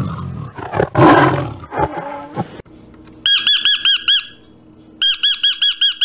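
A tiger growls for about two and a half seconds, loudest about a second in. Then high, rapid chirps come in two short runs of about a second each.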